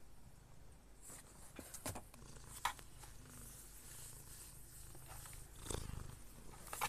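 Tabby cat purring faintly as a low, steady rumble, with a few faint clicks.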